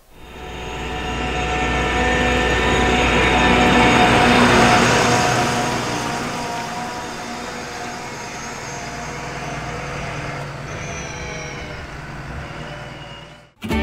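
Claas Dominator combine harvester driving past on a road, its diesel engine running with a steady drone that grows to its loudest about four seconds in and then slowly fades. It cuts off sharply near the end.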